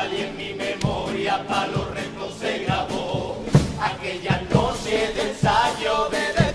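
A carnival chirigota singing a pasodoble in chorus, with a strummed Spanish guitar and a bass drum keeping a regular beat.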